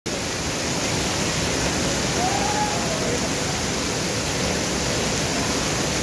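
Waterfall pouring into a rocky gorge, with spray falling like rain from the cliff face: a steady, even rush of water.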